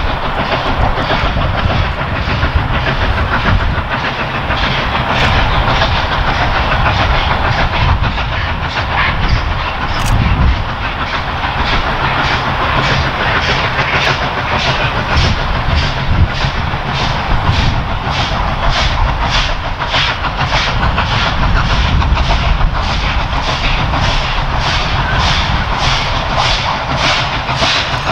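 Victorian Railways K class 2-8-0 steam locomotive K153 working a train, its exhaust chuffing in a steady beat that grows sharper and clearer as it draws near. Underneath is the low rumble of the train on the rails.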